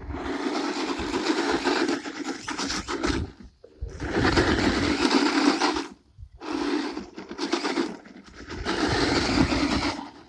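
Hart 20-volt battery RC truck driving on loose dirt and gravel: its electric motor runs and its tyres scrape and spin in four bursts of throttle, each one to three seconds long, with short pauses between.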